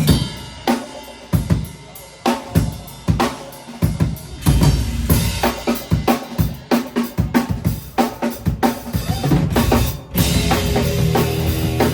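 Live rock band with a drum kit playing a busy passage of kick, snare and cymbal hits that grows denser. About ten seconds in the whole band comes in with held, sustained chords under the drums.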